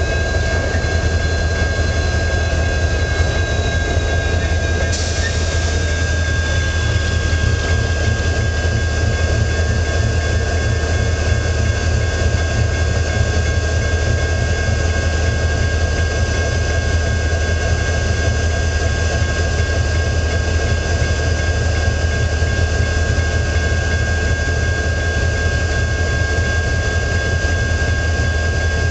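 Diesel-electric freight locomotive idling while the train stands, a loud steady low drone with a constant high-pitched whine over it.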